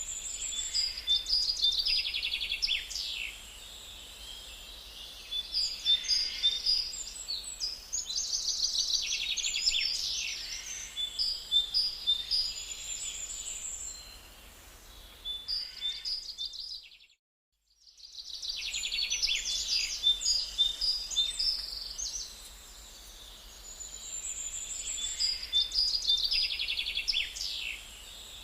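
Songbirds singing in the forest, with short phrases of chirps and quick trills repeating every few seconds over a faint steady background hiss. The sound cuts out completely for about a second just past the middle, then the birdsong resumes.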